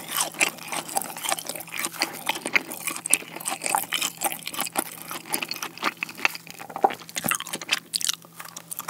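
Close-miked crunching and chewing of a fried cheese ball, with many quick crackles from its crisp breaded crust as it is pulled apart and bitten.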